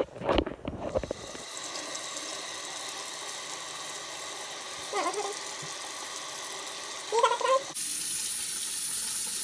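A few knocks, then water running steadily in a bathroom, with a short abrupt change in the sound near the end.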